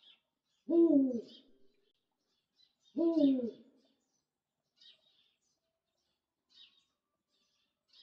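Eurasian eagle owl giving two deep hoots about two seconds apart, each bending slightly down in pitch. Faint high chirps of small birds are heard in the background.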